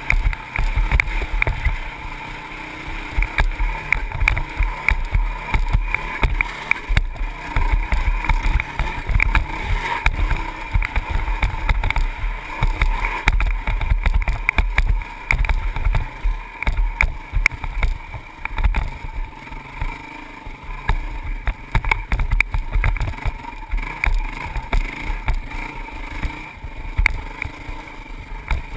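Honda CRF450X dirt bike's single-cylinder four-stroke engine running steadily under way, mixed with heavy wind buffeting on the microphone. Frequent small knocks and rattles come from the bike jolting over the rough dirt track.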